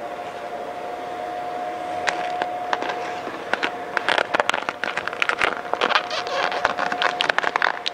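Vinyl wrap film crinkling and a squeegee scraping in quick, irregular clicks as the chrome film is worked into the grille slats, thickening from a few seconds in. A steady hum runs underneath until near the end.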